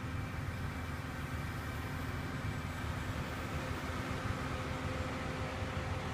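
Wind rumbling steadily on the microphone, with a faint steady hum from the distant HobbyZone Glasair Sportsman RC plane's electric motor and propeller in flight.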